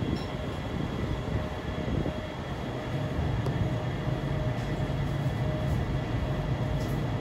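Steady low rumble of alley ambience with a faint steady hum, a little louder about halfway through.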